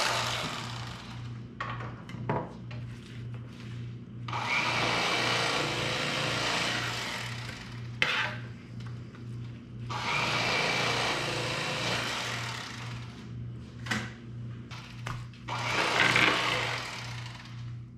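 Electric fillet knife running in three bursts of a few seconds each, its blades cutting through walleye fillets, with quieter scrapes and knocks in between.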